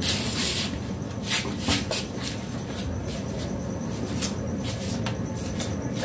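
Indian ringneck parakeet pecking and tearing at a fresh corn cob with its beak: a rustling burst at the start, then irregular crisp clicks and crackles of beak on husk and kernels.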